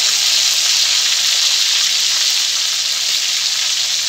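Marinated chicken leg piece sizzling in hot oil in a wok, a steady even hiss.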